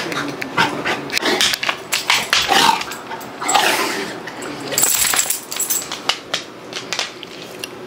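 Dog sniffing and snuffling as it roots for treats in a fleece snuffle mat, with a few breathy snorts and many quick clicks and taps of paws on a hardwood floor.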